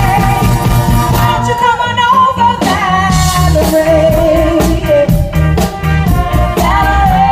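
Live band playing: a woman sings a wavering melody with vibrato into a microphone over electric bass and a drum kit keeping a steady beat.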